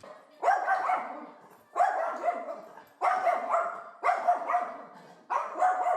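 A dog barking over and over, about one bark every second and a quarter.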